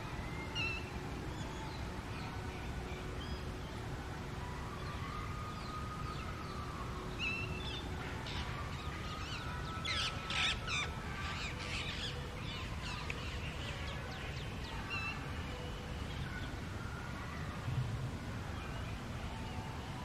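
Garden birds calling on and off, several short calls scattered through, with a cluster of louder calls about halfway through, over a steady low rumble.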